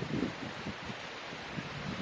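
Steady rushing outdoor noise of wind on the microphone mixed with moving water, with a few low gusts near the start.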